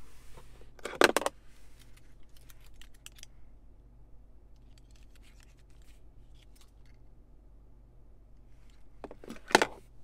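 Car key fob on a metal key ring, with a leather tag, handled against the hard plastic centre-console tray of the Acura RDX: a clatter as it is lifted out about a second in, light clicks and jingles as it is turned in the hand, and a second clatter as it is dropped back in near the end.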